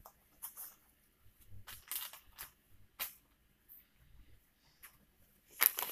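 Scattered soft clicks and rustles of tiny plastic doll shoes and toy pieces being handled on a table, with a louder rustle near the end.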